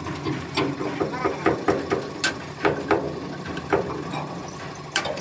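Irregular sharp clicks and knocks from tool work on metal, over a steady low hum.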